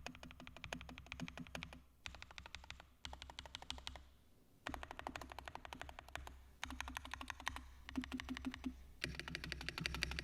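Fast typing on a Gateron GT60 mechanical keyboard with Gateron Ruby switches and PBT keycaps in a Tofu Redux case: rapid key clacks in several runs, with brief pauses between them.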